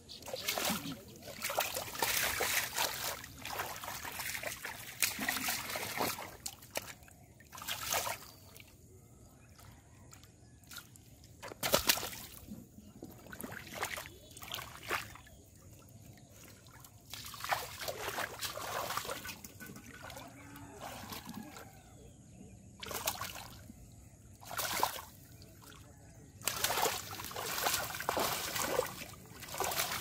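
Shallow muddy water splashing and sloshing in irregular bursts as a large fish is grabbed by hand and thrashes, with quieter gaps between. A few sharp single splashes stand out, and the splashing turns heavy and continuous near the end.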